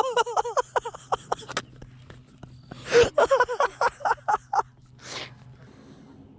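A woman laughing hard in two fits of quick, high-pitched pulses, the first fading out about a second and a half in and the second starting about three seconds in, then a gasping breath.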